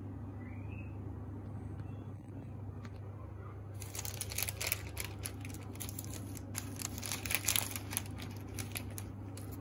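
Baking paper crinkling and crackling in a dense run of small clicks as a brownie square is pulled loose from the tray by hand, starting about four seconds in, over a steady low hum.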